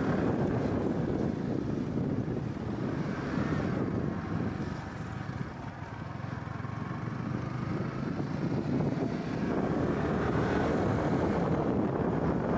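Yamaha R15 V3 motorcycle under way on the road, its single-cylinder engine running amid wind rushing over the microphone. The sound eases about halfway through and builds up again near the end.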